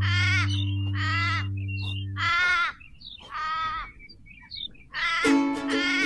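Four pitched animal calls, about a second apart, over a steady low music chord that stops a little after two seconds; a plucked-string tune starts near the end.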